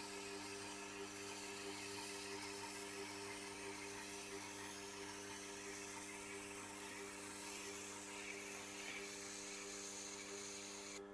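Tormek sharpening machine running with a steady hum and an even hiss from the wheel as the knife is worked on it; the hiss cuts off suddenly near the end.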